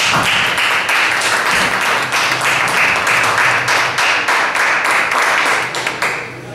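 Audience clapping and applauding, dying away about six seconds in.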